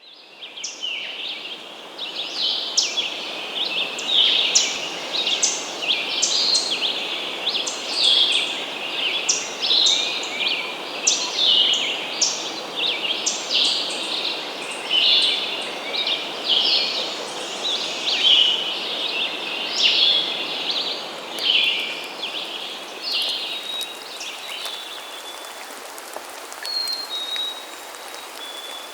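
Forest bird chorus: many birds calling at once in quick, dense runs of short chirps, over a steady hiss of background ambience. The chorus thins out about three-quarters of the way through, leaving a few thin, high whistled notes.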